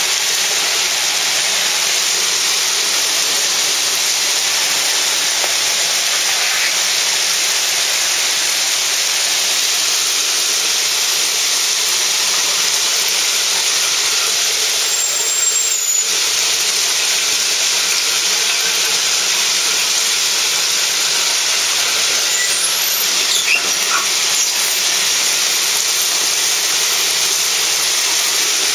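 Rail-car ballast plow blade scraping and shoving crushed-stone ballast along the track as the car rolls, a steady, loud gravelly hiss. A few faint short squeals come through about halfway and again later.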